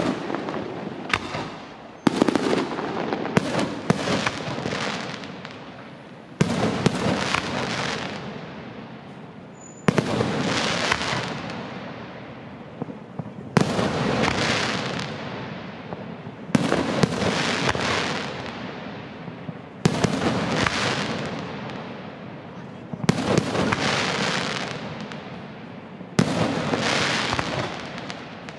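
Aerial firework shells bursting in a steady sequence: about ten sharp bangs, roughly one every three seconds, each followed by a long fading rumble and crackle.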